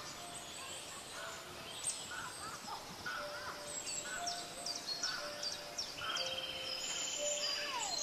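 Forest ambience of many birds calling with short chirps and whistles that rise and fall, over a faint steady hiss. A steady pulsing trill, typical of an insect, joins about six seconds in.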